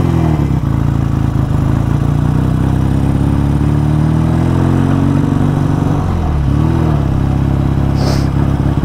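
BSA A10 Super Rocket's 650 cc parallel-twin engine pulling the bike along. The note dips briefly, climbs steadily for several seconds as it accelerates, then falls and rises again about six seconds in. The carburettor has just been adjusted by hand, and the rider reckons he has got it wrong.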